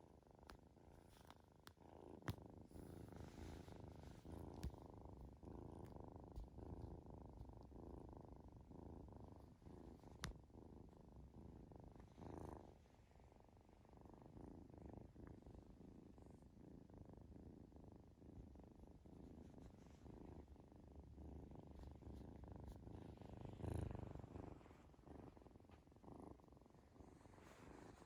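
A kitten purring steadily and close up, with a few faint clicks.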